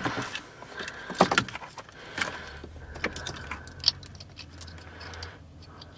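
Plastic wiring-harness connectors and bundled wires rattling and clicking as they are handled and pushed together behind a car dashboard, with a few sharp clicks among the rustle.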